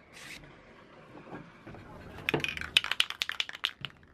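A sandpaper stroke on a sanding block across a 3D-printed plastic blade's filled seam, then about two seconds in a quick run of sharp clicks and light rattling taps.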